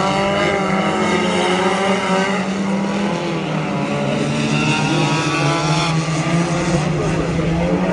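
Engines of a pack of front-wheel-drive race cars running at speed together, several engine notes overlapping and wavering slightly in pitch.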